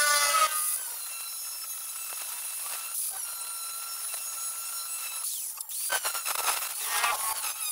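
Angle grinder with a cut-off disc working on thin galvanized sheet metal. Its pitch falls briefly at the start, then it runs steadily and lightly along the score line. A rougher, uneven cutting sound comes back about five seconds in.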